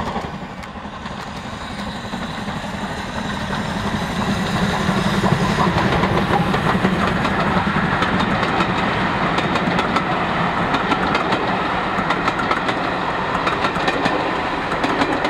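A steam-hauled passenger train passing close by. It grows louder about four seconds in as the locomotive draws near, then the coaches roll past with their wheels clicking over the rail joints.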